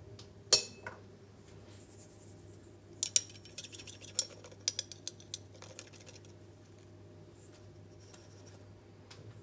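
Glass jar clinking against a steel tablespoon as salt is poured onto the spoon: a run of small clinks and ticks, after one sharp clink about half a second in.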